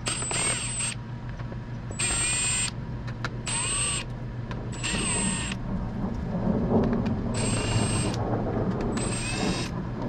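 Milwaukee M18 cordless impact driver backing screws out of a plastic trim panel: the motor whines in about six short bursts, each under a second, and winds down in pitch at the end of each.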